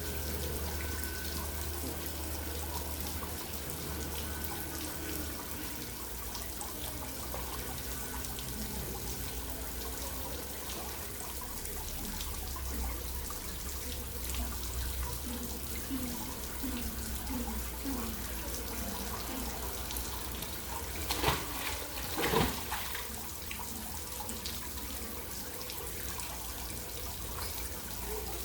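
Steady running and trickling water in a penguin pool, with a low hum underneath. About two-thirds of the way through come two brief louder sounds close together.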